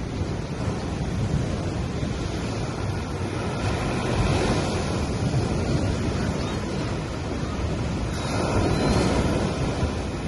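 Gentle ocean waves breaking and washing up a sand beach, in a steady rush that swells twice, about four seconds and eight seconds in.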